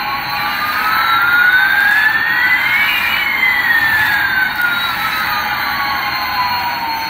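Electronic jet-engine sound effect from a toy radio-control airliner: a steady whoosh with two whistling tones sliding in opposite directions, one rising and one falling, that cross about three seconds in. It cuts off suddenly at the end.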